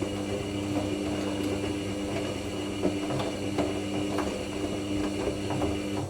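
Hoover NeXtra HNL3146 washing machine's drum tumbling in the heated main wash: a steady motor hum with irregular soft knocks and clicks from the wet load turning over. The motor stops right at the end.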